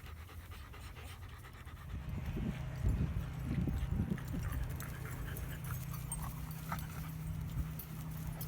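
A dog panting, louder from about two seconds in.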